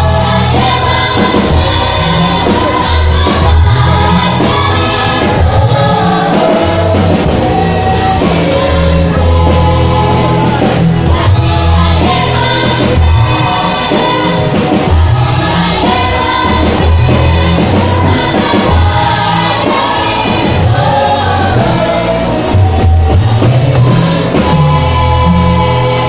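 A youth choir singing in unison through microphones, with deep amplified bass notes underneath.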